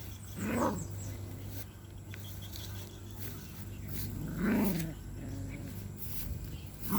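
A puppy giving three short vocal calls, each about half a second long, spaced a few seconds apart, over a low steady hum.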